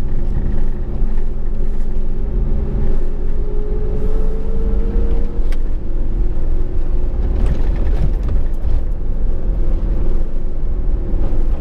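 Power Wagon pickup's Hemi V8 and tyres heard from inside the cab while climbing a rutted dirt road. The engine note rises slowly over the first five seconds, then gives way to a rougher rumble from the tyres on the uneven track.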